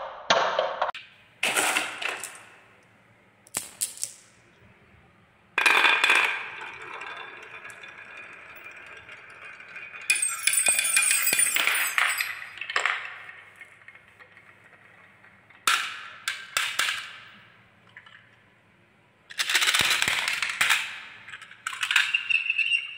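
Marbles rolling and clacking down wooden wave tracks, in a series of runs with sharp clicks as they knock against the wood and each other and drop into a toy truck's tray. Several times the marbles strike the metal bars of a toy xylophone, and a bar rings on for a few seconds, once about six seconds in and again near the end.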